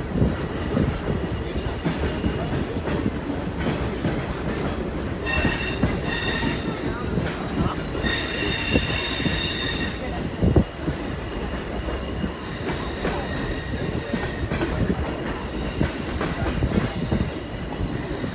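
Passenger train rolling along the track with a steady rumble, its wheels squealing high-pitched against the rails twice: a short, broken squeal about five seconds in and a longer one of about two seconds near the middle.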